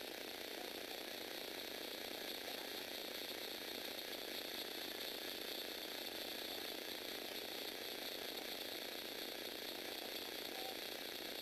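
Lego Technic four-speed gearbox driven by a Power Functions electric motor through a worm gear, its plastic gears running steadily with a fine, rapid clatter of meshing teeth.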